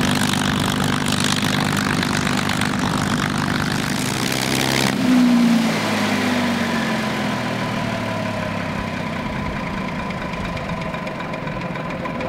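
P-51D Mustang's Packard V-1650 Merlin V12 engine running steadily at low power. About five seconds in the sound drops off suddenly and the pitch slides down, with a faint whine left as the engine winds down, typical of the engine being cut.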